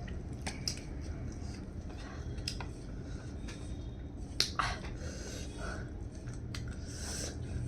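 Eating sounds: scattered small wet clicks and smacks of chewing, with one sharper click about four and a half seconds in.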